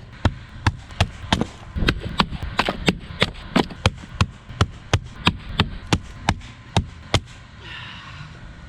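Wood being chopped: a rapid series of sharp chopping strikes into a log, about three a second, which stops about seven seconds in.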